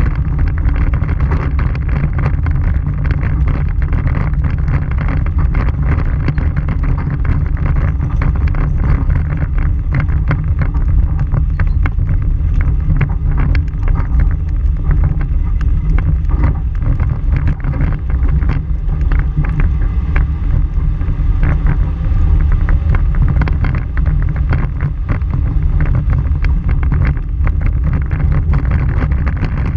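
Vehicle driving on a dirt and gravel road, heard from a camera on its front bumper: a steady low rumble of tyres and wind buffeting the microphone, with constant small clicks and rattles of gravel.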